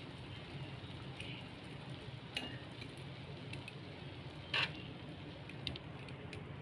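A spatula clinking and scraping against a wok a few times as cooked fried noodles are stirred and scooped out, the loudest clink about four and a half seconds in. Under it runs a low steady hum.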